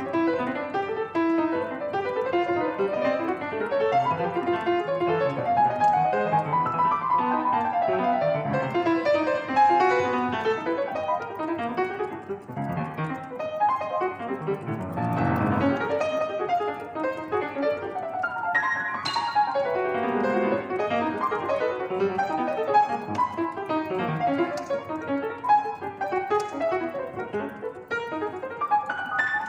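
Solo piano playing a dense, continuous stream of notes across the keyboard, with a thick cluster of low notes about halfway through.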